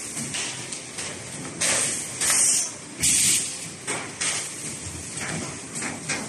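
Thermoforming vacuum packaging machine running, with several bursts of hissing air, the loudest about a third and halfway through, between mechanical knocks and a steady machine hum.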